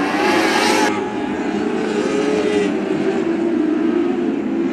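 Several lightning sprint cars racing on a dirt oval, their engines at high revs, the pitch rising and falling as they go through the turns.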